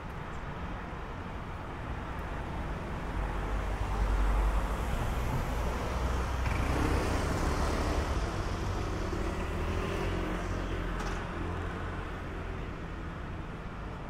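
Street traffic: cars and motorbikes driving past on the road close by. A low engine rumble swells to its loudest about four seconds in, an engine hum rises and falls through the middle, and the traffic then eases off.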